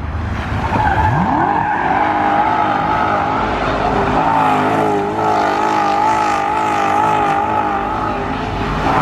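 A car doing donuts: its engine revs up about a second in and is held at high revs with a wavering pitch while the tires squeal steadily.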